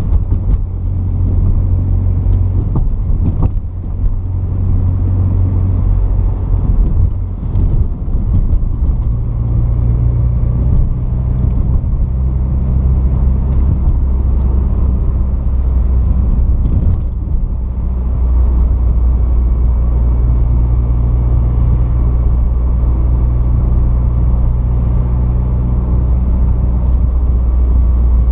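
Porsche 944's 2.5-litre four-cylinder engine running while the car is driven, a steady low drone that shifts pitch a few times in the first twenty seconds, then holds even.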